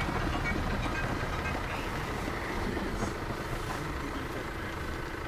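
Steady engine and tyre noise of a car driving on a paved road, heard from inside the cabin.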